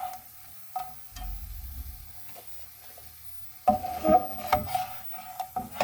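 Spatula scraping and knocking against cookware as cooked fries are lifted out onto a plate. It starts with a few faint clicks, and a busy run of loud knocks and scrapes begins about two-thirds of the way through.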